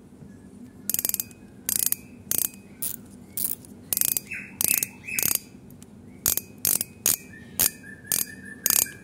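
Shimano Ultegra 4000 spinning reel's spool clicker ratcheting as the spool is turned by hand: loud, sharp clicks in short irregular clusters, about two a second. The clicker has been fitted with a stiffer spring taken from a lighter to make it louder.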